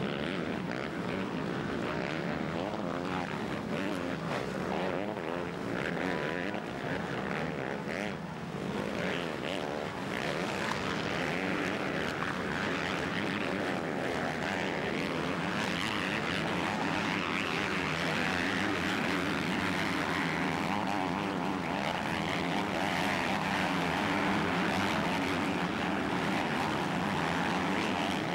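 A pack of motocross bike engines racing at high revs, many engine notes overlapping and rising and falling as the riders work the throttle.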